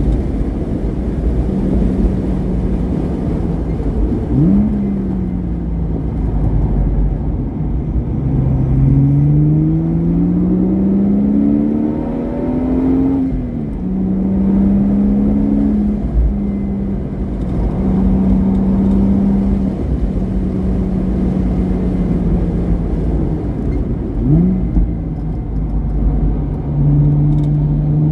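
Porsche Boxster S flat-six with a modified exhaust driven hard on track: it holds steady revs, climbs in pitch under acceleration for a few seconds before dropping sharply at a gear change about halfway through, and gives two quick throttle blips, one early and one near the end, over a heavy low rumble.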